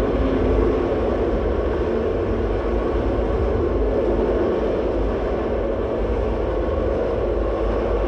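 Underground metro train running through a tunnel: a steady rumble.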